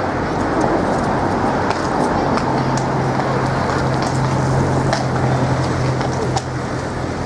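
Street traffic din with a vehicle engine running in a steady low hum, which swells about two seconds in and drops away near the end.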